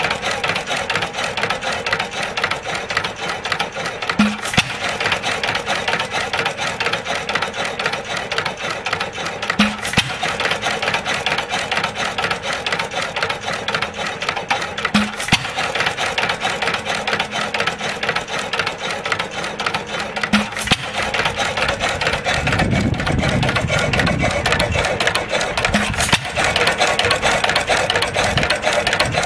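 Restored 4 hp Domestic side-shaft hit-and-miss engine and pump outfit running at medium speed, not yet fine-tuned: a steady fast mechanical clatter of the valve gear and pump. A sharp bang about every five and a half seconds marks each firing stroke, with the engine coasting on its flywheels between them. A brief low rumble comes about two-thirds of the way through.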